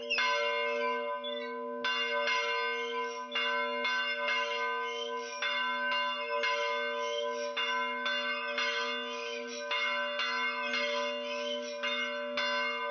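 Church bells struck over and over at an uneven pace, roughly two strikes a second, their tones ringing on and overlapping.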